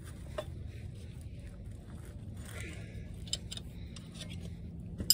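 Wrench being worked on a rusted bolt of a Wisconsin V4 engine: faint metallic scrapes and clicks over a steady low hum, with a sharp metal click near the end.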